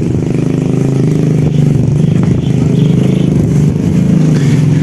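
A small engine running steadily close by, a continuous low drone that holds one pitch, with faint clatter and scraping over it.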